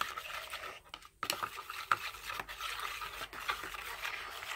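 Foam of foaming hand soap and cocoa sizzling: a dense crackle of tiny bubble pops, with a brief lull about a second in. The hand sanitizer squirted onto it is making the bubbles burst and disappear.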